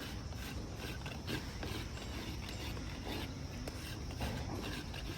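Farrier's rasp filing a horse's hoof, in repeated scraping strokes.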